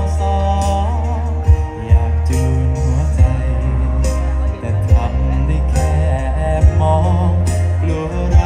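A song with a singer over a backing track: the voice holds notes with vibrato above a heavy bass line and regular drum hits.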